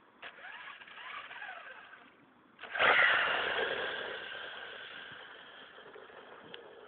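Electric RC buggy's brushless motor and gear drive whining in short bursts that rise and fall in pitch. About three seconds in comes a sudden, much louder burst of acceleration, which slowly fades as the buggy runs away over the asphalt.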